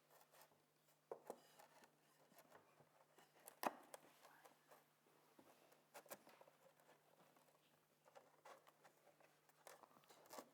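Near silence: room tone with a few brief, faint knocks and clicks, the clearest a little before the middle.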